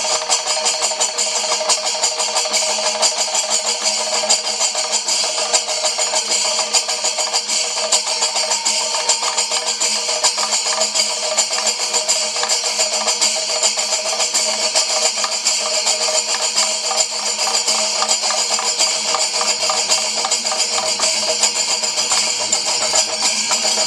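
Kerala chenda melam: massed chenda drums beaten in fast, dense strokes with jangling ilathalam brass hand cymbals, playing without a break.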